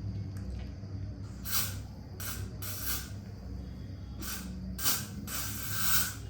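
A spray being sprayed in six short hissing bursts, the last one the longest, about a second long.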